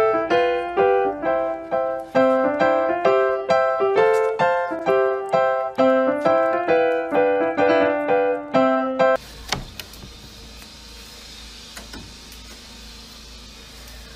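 Background piano music playing a short melody that repeats about every two seconds, cutting off abruptly about two-thirds of the way through. After it comes a faint steady hiss with a few soft clicks.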